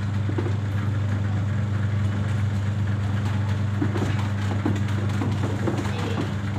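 Washing machine running with a steady low hum and irregular rattling clicks: the abnormal 'gad gad' grinding noise from one side of the machine that is the fault being shown.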